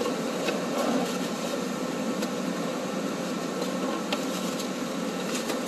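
Steady drone of factory machinery and ventilation, with a few faint knocks.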